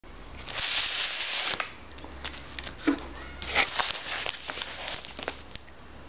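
Plastic mailing bag rustling and crinkling as it is handled, in two louder spells about a second in and near the middle, with scattered light clicks between.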